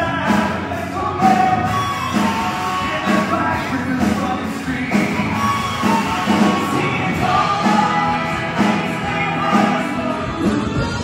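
Rock band playing with a steady drum beat, electric guitars and a lead voice singing.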